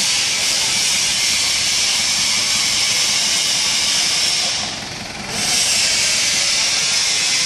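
A steady, loud hiss that fades briefly about five seconds in and comes back, with a forklift's engine running faintly beneath it as the truck drives.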